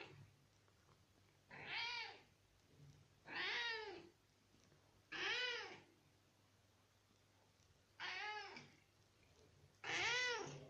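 A long-haired grey cat meowing five times, each meow rising and then falling in pitch, about every two seconds. It is begging to have the bathtub tap turned on so it can drink.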